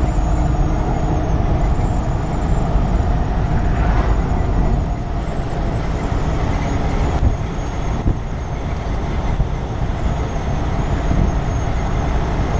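A 2015 Kenworth T680 semi-truck under way, its diesel engine running steadily with road noise, heard from inside the cab.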